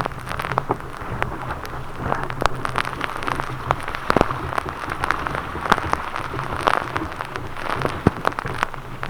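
Water splashing and spattering around a sea kayak in surf, in many quick irregular ticks like raindrops, over a low wind rumble on the microphone.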